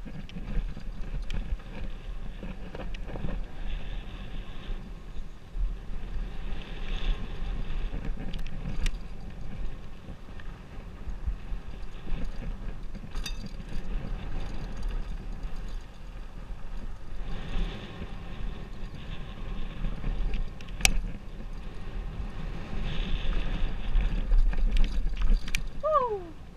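Specialized Enduro full-suspension mountain bike descending a dirt flow trail, heard from a helmet camera: a steady rush of wind buffeting the microphone over the rumble of tyres on dirt. A few sharp knocks come from the bike over bumps, and a short falling tone sounds near the end.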